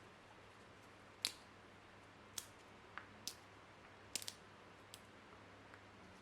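A handful of short, sharp clicks and taps, about seven, spaced irregularly over quiet room tone, the loudest a little over a second in.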